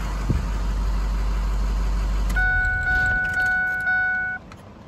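Ford 6.0 Powerstroke V8 turbo-diesel idling, then shut off with the key: the low rumble dies about halfway through. A dashboard warning chime then dings about twice a second for two seconds and stops.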